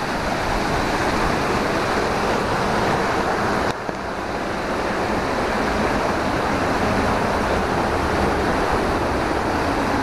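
Small jungle stream cascades rushing over rocks close by: a steady, full rush of falling and tumbling water.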